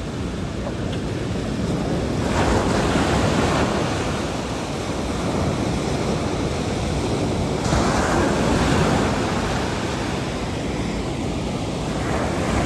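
Sea waves breaking and washing up a sandy beach, a steady rush that swells as a wave comes in about two seconds in and again near eight seconds, with wind buffeting the microphone.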